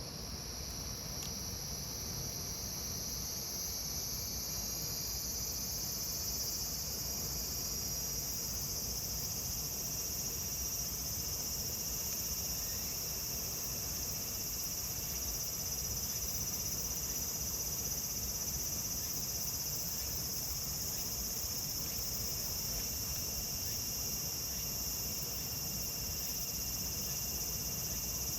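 Cicadas singing in a steady, dense, high-pitched chorus that swells over the first few seconds and then holds level.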